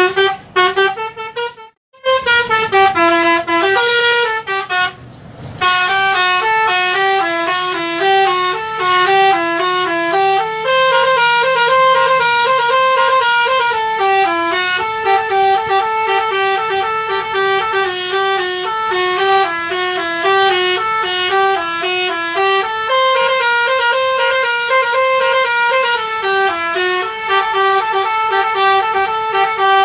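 Basuri 'telolet' multi-tone musical vehicle horn playing a tune in stepped, held notes, with brief breaks about two seconds and five seconds in.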